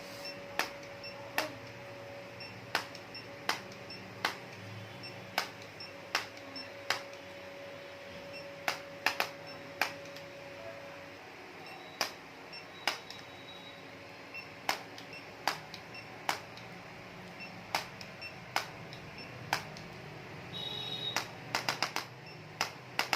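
A series of sharp clicks at an irregular pace, roughly one or two a second, with a quick cluster of clicks near the end. A faint steady tone sounds under the first half and stops about halfway through.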